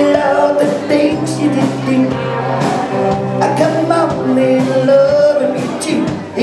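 Live band playing a song: a male singer over electric guitars and a drum kit keeping a steady beat.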